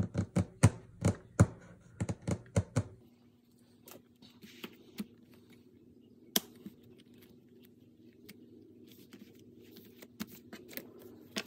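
Paper inserts being handled and turned on the metal rings of a leather ring planner. A quick run of sharp clicks fills the first three seconds, followed by quieter paper rustling with a few single clicks.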